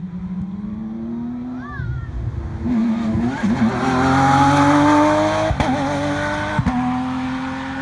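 Rally car engine at high revs, its note rising as the car accelerates closer, with two sharp cracks and a short dip in the note at each upshift near the end.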